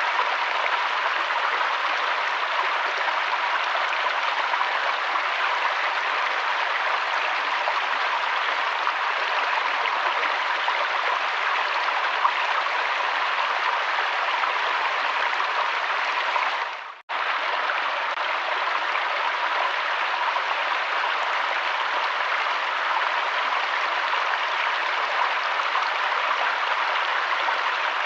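River water flowing and rushing in a steady, even rush. About 17 seconds in it briefly fades out and cuts straight back in.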